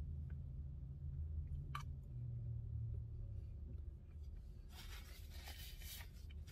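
Paper napkin rustling as it is wiped across the mouth for about a second and a half near the end, over a low steady hum, with one faint click a couple of seconds in.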